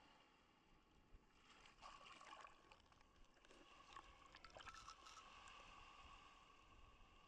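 Near silence: faint background noise with a few faint ticks.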